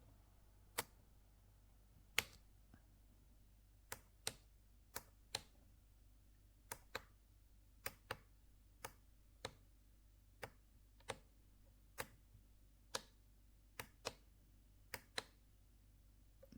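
A series of about twenty sharp plastic clicks at uneven intervals, like buttons being pressed on the sunrise alarm clock, over a faint steady low hum.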